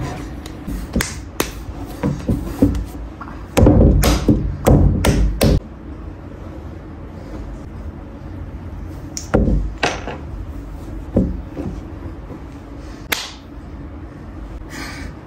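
Dull knocks and slaps of a block of clay being handled and struck against a wooden worktable, in a loud cluster of several hits a few seconds in, then single knocks spaced out after it.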